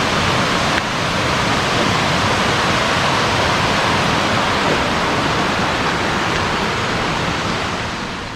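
Steady, loud rush of flowing water, easing off slightly near the end.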